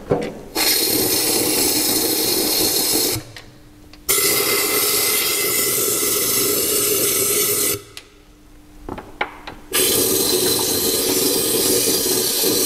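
Compressed-air spray gun squirting rust-proofing cavity wax through a long flexible lance into a car's chassis sections: three long, even hissing squirts of about three to four seconds each, with short pauses between.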